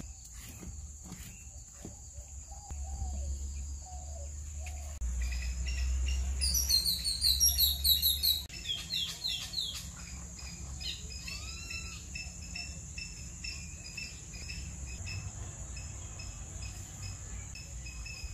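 Birds chirping over a steady, high-pitched insect drone, with a burst of rapid, loud chirps about seven seconds in. A low rumble underlies the first half and stops about eight seconds in.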